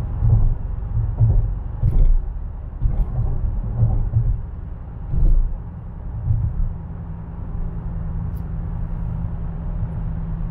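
Dodge Challenger at highway cruising speed, heard from inside the cabin: a low engine and tyre rumble that swells unevenly several times in the first half, then settles into a steady drone.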